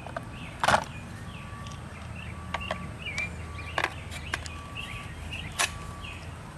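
Sharp metallic clicks of an AR-15 as its upper and lower receivers are pinned back together: one loud click just under a second in, another near four seconds, one more near five and a half, with lighter ticks between.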